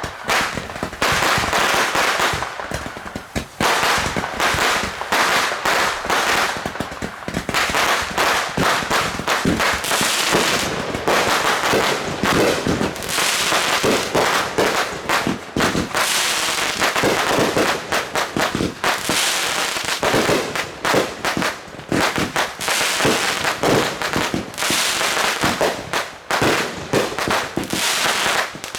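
Fireworks going off in a rapid, continuous barrage of bangs and crackles, with only brief lulls.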